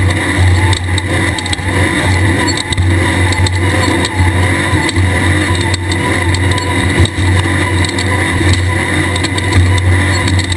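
A Class 1600 desert race car's air-cooled Volkswagen engine running steadily, with frequent short knocks and rattles throughout.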